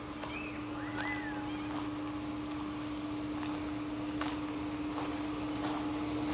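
Footsteps on a garden path, one step about every three-quarters of a second, with a few short bird chirps near the start. Under them runs a steady low hum and a rushing noise that slowly grows louder, from a source that can't be identified.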